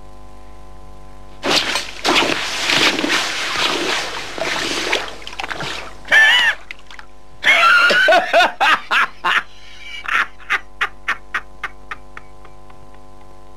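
A man laughing heartily. A long breathy stretch comes first, then a couple of high cries, and toward the end a run of short 'ha' bursts that come faster and fade out.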